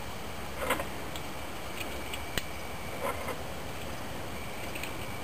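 A few small, scattered clicks of .22 long rifle rounds being pressed into a Taurus PT22 pistol magazine, one sharper click in the middle, over steady hiss.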